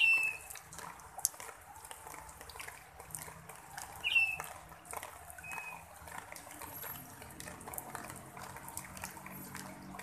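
Light rain falling steadily, with scattered drops ticking on leaves and gravel. A bird gives short high chirps right at the start and again about four seconds in, the loudest sounds here, with a fainter one soon after.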